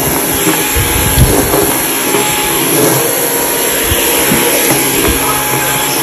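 Dyson V15 cordless stick vacuum running on Eco mode as it is pushed over a tiled floor: a steady high-pitched motor whine with airflow hiss.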